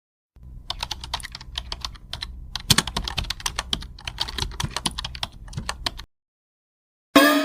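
Rapid typing on a computer keyboard: a dense, irregular run of key clicks that starts about half a second in and stops abruptly about six seconds in.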